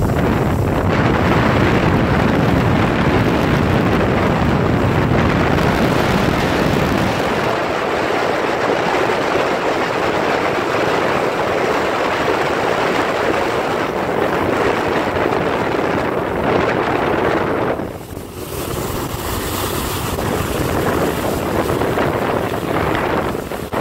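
Motorboat under way towing a water skier: wind rushing over the microphone over the boat's engine drone and the churn of its wake and spray. The sound drops briefly about three quarters of the way through, then resumes.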